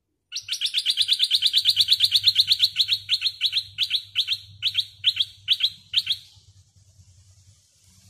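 Caged decoy bulbul calling: a fast run of sharp, repeated chattering notes, about seven a second, that slows and breaks into short groups after about three seconds and stops around six seconds in.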